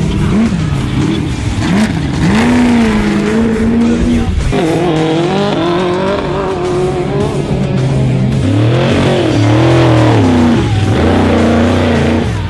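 Off-road race vehicle engines revving up and down hard as they pass at speed, the pitch rising and falling again and again, with two engines heard at once in the second half.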